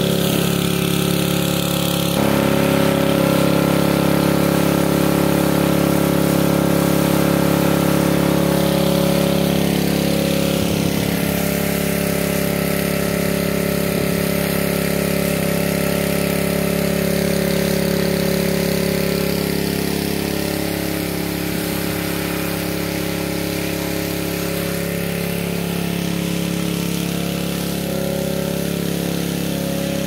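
A small engine running steadily at a constant speed.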